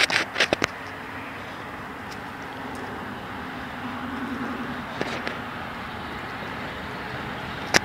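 Steady outdoor background noise, with several sharp clicks in the first second and single clicks about five seconds in and at the end.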